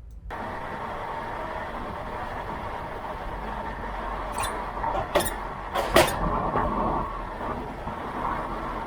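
Road and tyre noise picked up at the left rear suspension of a moving Mazda CX-5, with three sharp knocks about halfway through as the wheel goes over bumps. The suspension gives a faint squeaking over the bumps: this left rear corner is where the car's intermittent squeak comes from.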